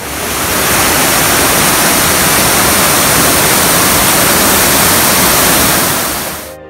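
Small waterfall pouring over rock, heard close up as a loud, even rushing of water. It swells in at the start and stops abruptly near the end.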